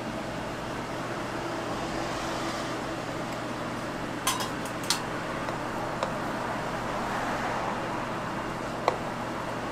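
Steady background hum of a street food stall with a few short, sharp clinks of metal utensils, an ice cream scoop and serving tongs, at the crepe plate, about four, five, six and nine seconds in.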